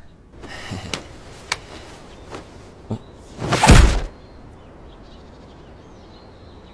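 A few faint knocks, then a single loud thud about three and a half seconds in, over a quiet low background hum.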